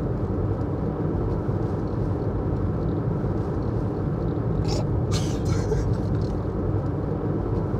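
Steady road and engine rumble inside a moving car's cabin, even throughout, with a couple of brief hissing sounds about five seconds in.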